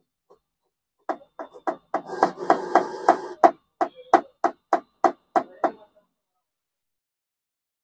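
Plastic HP 728 ink cartridge, a filling syringe in its port, tapped down against a desk during refilling: about seventeen sharp taps at roughly three a second, with a rustle under the middle taps.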